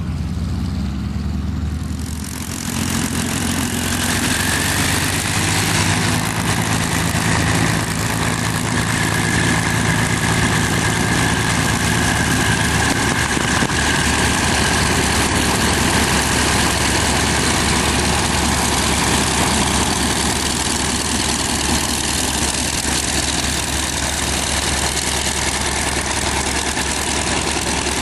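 F4U Corsair's Pratt & Whitney R-2800 eighteen-cylinder radial engine running at low taxi power, with the propeller turning. The sound grows louder and harsher about two and a half seconds in and then holds steady.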